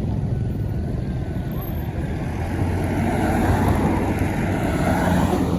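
A large road vehicle, most likely a tour bus, passing close by: a steady engine and tyre rumble that swells over the second half.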